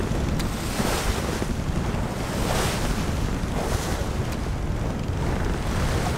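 Wind blowing on the microphone over the rush of choppy sea water along a sailing yacht's hull as it sails, the sound swelling now and then.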